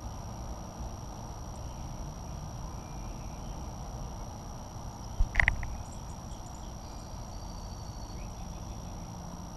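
Steady low rumble of outdoor background noise, broken about five seconds in by one brief loud knock. A few faint high peeps follow.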